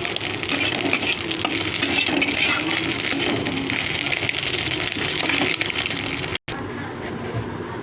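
Metal cooking utensils clinking and scraping in a pan over a steady hiss. Cuts off about six seconds in.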